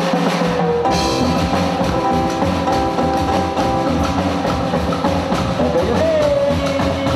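A live band kicking into a song all at once: drum kit and bass keep a steady beat under a held, bending lead guitar melody.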